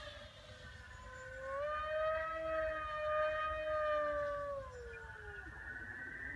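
Brushless electric motor and 8x6 propeller of a Durafly EFXtra RC model plane in flight: a pitched whine that rises a little about one and a half seconds in, holds, then drops in pitch and fades about five seconds in.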